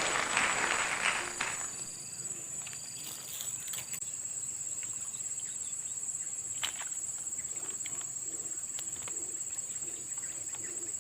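Steady high-pitched trilling of an insect chorus. A loud rustling noise fades out in the first second and a half, and a few faint clicks follow.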